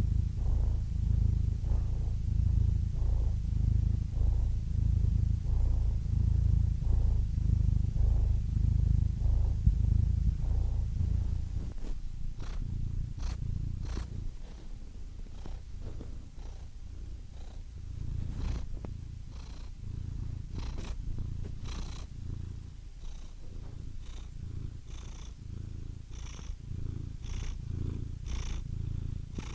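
Domestic cat purring: a low rumble that pulses steadily with each breath in and out. It drops noticeably quieter about twelve seconds in, and a few faint clicks are scattered through the quieter part.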